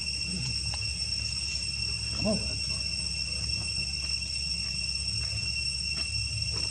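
Steady, unbroken high-pitched trill of crickets over a low hum. About two seconds in comes one short, pitched call.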